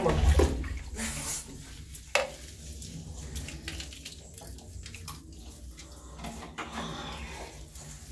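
Water running and splashing as a small dog is washed in a tiled shower, loudest in the first second or so, with a sharp knock about two seconds in.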